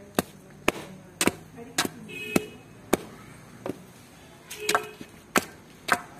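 Wooden sticks beating a snake on dirt ground: sharp, repeated blows, about ten of them at a little under two a second, with a longer gap past the middle.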